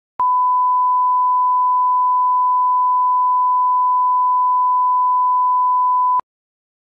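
1 kHz reference test tone of a bars-and-tone line-up signal: one steady pure tone lasting about six seconds, with a click as it starts and as it cuts off.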